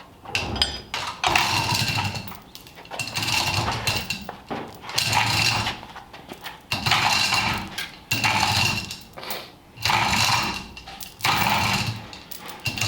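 Lifting hoist being worked in repeated strokes, with metallic clanking and ratcheting about once every second and a half while the flathead engine is lowered.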